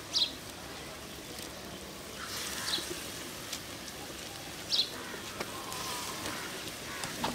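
Hot oil sizzling steadily in a wok as batter-coated fritters are lowered into it by hand, with three short high chirps about two seconds apart.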